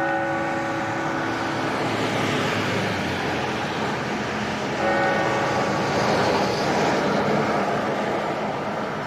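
A clock bell strikes twice, about five seconds apart. Each stroke rings on and slowly fades. Underneath is a steady wash of passing car traffic.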